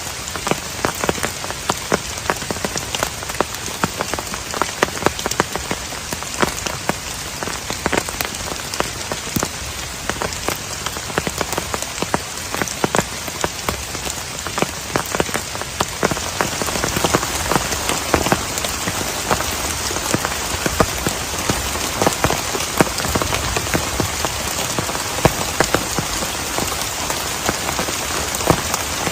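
Heavy rain falling steadily, with a dense patter of separate drops striking a surface close by; it grows a little heavier about halfway through.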